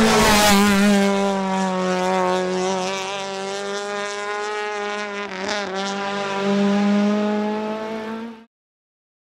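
Rally car engine held at high revs, a loud steady note that wavers briefly about five and a half seconds in, then the sound cuts off abruptly.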